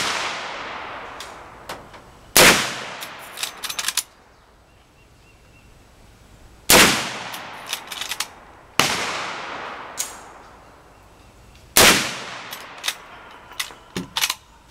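.357 Magnum gunshots: four loud shots a few seconds apart, each trailing off in a long echo. Smaller clicks and knocks come between them.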